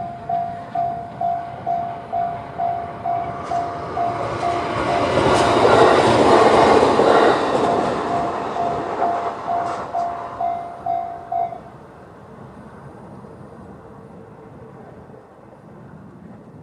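Japanese level-crossing electronic warning bell in the JR standard tone, pulsing about two and a half times a second, while a Shinano Railway SR1-series electric train passes with a rush of noise that swells and fades over several seconds. The bell stops about eleven and a half seconds in.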